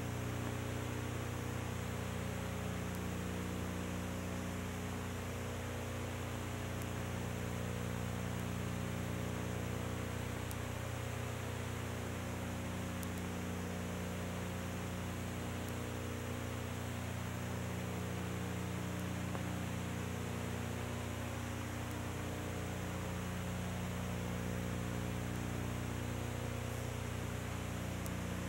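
Steady electrical hum over a layer of hiss, with no other sound. One of the hum's tones swells and fades every five seconds or so.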